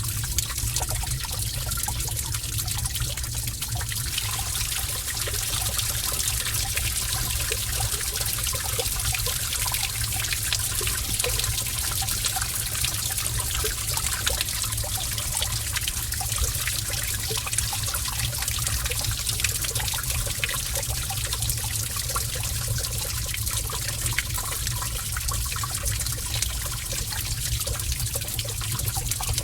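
Water trickling and running steadily in a cave, with small scattered drips over a low, even rumble.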